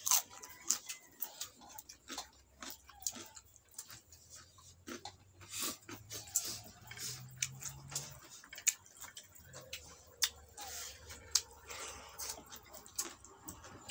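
Close-up eating sounds: chewing and lip smacks made up of many short sharp clicks, with fingers working rice on a wooden plate.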